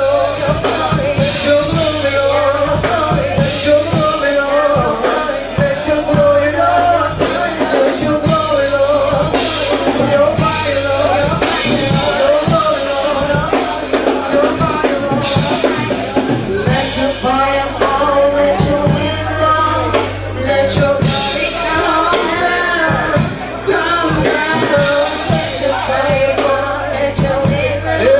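Live gospel praise music: a band with drum kit, bass and a held keyboard or organ tone, with singing over it.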